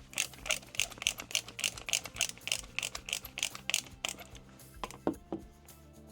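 A ratcheting hand tool clicking evenly, about three clicks a second for some four seconds, as small screws are driven into a model truck's chassis. Background music plays throughout, and a couple of single light knocks come near the end.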